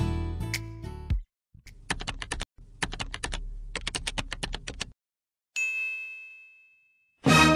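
Typing sound effect: runs of rapid key clicks for about three seconds, then a single bell-like ding that rings out and fades. A short music hit sounds in the first second.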